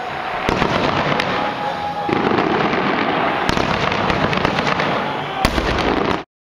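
Fireworks going off: a dense run of small pops with a few sharper bangs, the loudest near the end. The sound cuts off abruptly about six seconds in.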